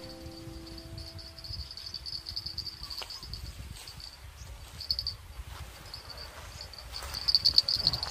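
Insects chirring: a steady, high-pitched pulsing buzz over a low rumble.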